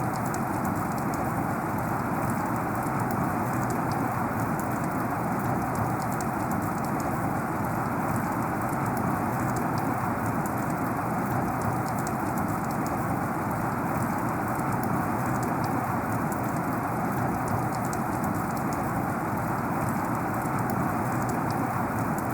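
Heavy rain falling steadily, a dense even hiss with countless fine drop ticks.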